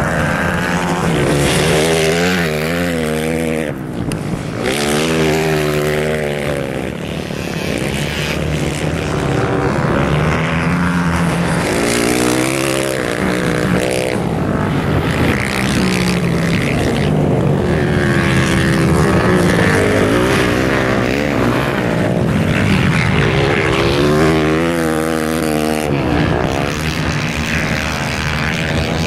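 Several motorcycle engines revving up and down over and over, their pitch rising and falling as the bikes accelerate and slide through turns on ice.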